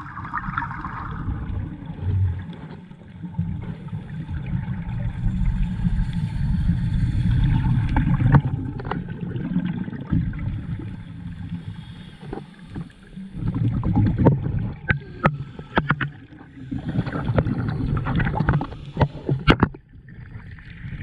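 Muffled underwater noise picked up by a camera in a waterproof dive housing: a low rumble of water and scuba exhaust bubbles, with scattered sharp clicks and knocks, most of them between about 8 and 20 seconds in.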